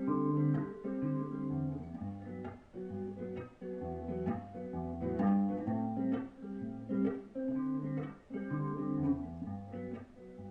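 Guitar playing the instrumental intro to a song: chords strummed and picked in a steady rhythm, about two strokes a second, with no voice yet.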